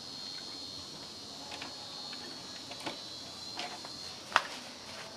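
Steady high-pitched insect trilling that stops about four seconds in, with a few light clicks and one sharp click just after it stops.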